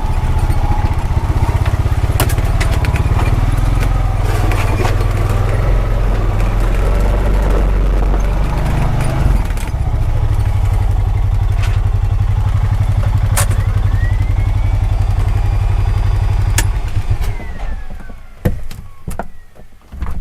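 Honda Pioneer 520 side-by-side's single-cylinder engine running steadily, with occasional knocks and rattles from the machine. The engine shuts off about 17 seconds in, followed by a few separate clicks and clunks.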